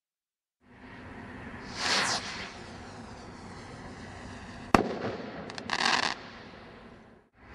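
A Category 3 firework rocket from the Brothers Pyrotechnics Galactic Star pack launches with a short whoosh about two seconds in. Near the five-second mark it bursts with one sharp bang, followed about a second later by a brief hiss as the stars spread.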